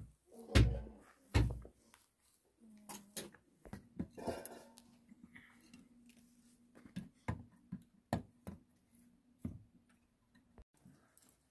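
Scattered knocks and clicks of objects being handled, with two heavy low thumps early in, and a steady low hum that starts about three seconds in and stops shortly before the end.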